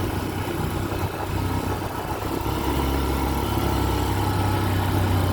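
A vehicle engine running steadily with a low hum, under a constant noise.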